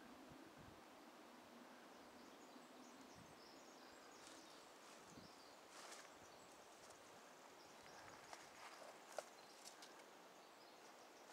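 Near silence, with faint rustling and crackling of footsteps through dead branches and twigs and a few sharp clicks, the loudest about nine seconds in.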